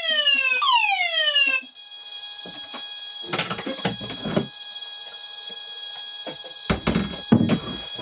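Banshee fire alarm sounder wailing in repeated falling sweeps, about one a second, after its smoke detector was set off by incense smoke. It is muted about a second and a half in. A steady high-pitched tone carries on after it, with a few knocks and rustles.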